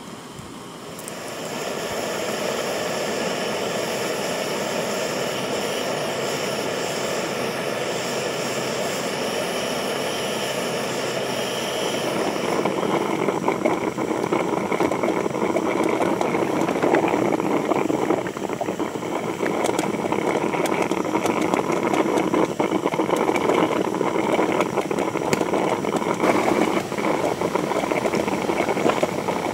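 Motorboat engine running steadily, growing louder about halfway through.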